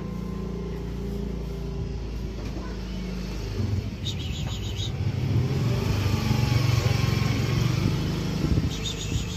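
A motor vehicle engine running close by, a steady low hum that swells louder about three and a half seconds in, as if revving or drawing nearer.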